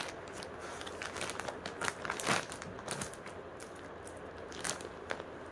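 Clear plastic garment packet crinkling in irregular crackles as it is handled open and a folded suit is slid out of it, loudest about two seconds in.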